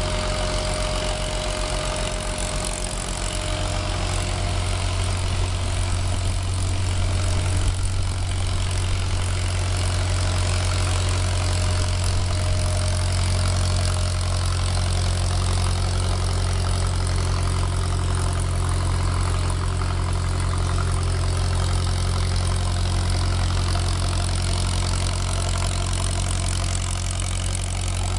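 Machinery of a biomass gasifier power plant running: a steady, unchanging low drone.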